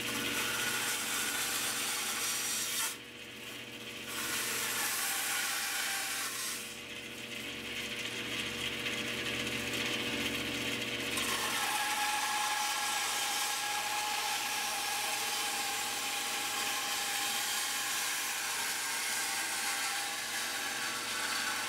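Band saw running and cutting pine as a box's outer tree-shaped profile is trimmed, a steady motor hum under the hiss of the blade in the wood. The cutting noise drops away briefly about three seconds in and again from about seven to eleven seconds in, as the work eases off the blade.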